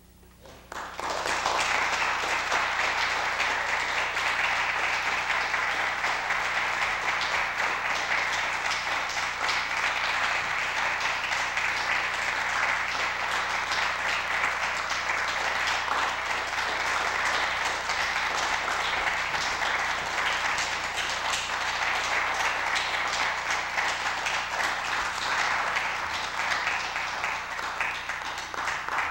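Audience applauding, a dense steady patter of many hands clapping that starts about a second in.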